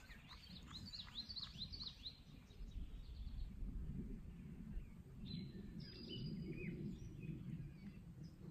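Birds chirping in quick runs of short, down-slurred notes, twice, over faint low outdoor background noise.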